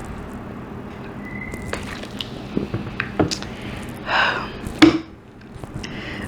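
A person gulping room-temperature Diet Coke, with a run of short swallowing clicks. About four seconds in comes a loud breathy gasp, then a short, sharp burp that loses a no-burp challenge.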